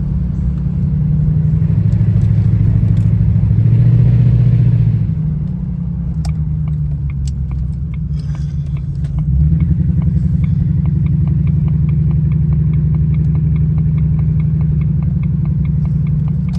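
Supercharged V8 of a Jaguar XJR heard from inside the cabin on the move: engine and road rumble that swells for the first few seconds, eases off about five seconds in, and pulls again near ten seconds. From about six seconds a light, even clicking, several clicks a second, runs under the rumble, which the driver thinks is worn wheel bearings.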